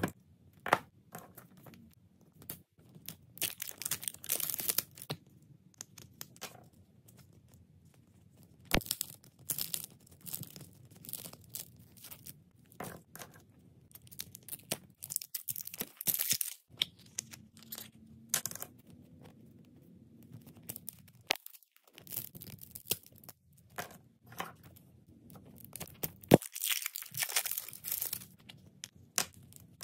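Crackle slime's dried, glossy top layer crackling and tearing as it is cut and squeezed, in irregular bursts of fine crackles, with a few sharp clicks.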